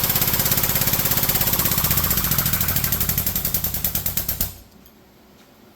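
Hydraulic press pump running with a rapid, even pulsing while it presses a rib into a steel panel, stopping suddenly about four and a half seconds in.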